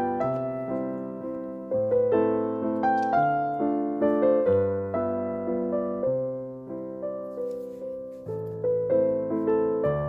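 Background piano music: a gentle melody of struck notes that ring and fade, over a repeating bass pattern.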